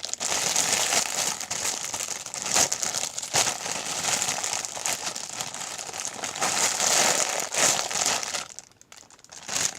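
Crinkly plastic packaging rustling and crackling as a foam squishy toy is pushed into it. The crinkling is dense, eases off about a second before the end, and comes back with one short crinkle near the end.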